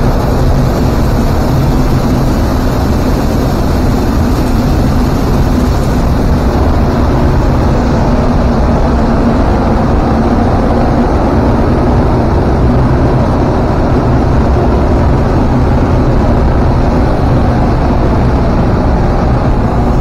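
Steady loud drone of grain-elevator machinery while shelled corn pours from a hopper-bottom grain trailer through the receiving-pit grate during unloading.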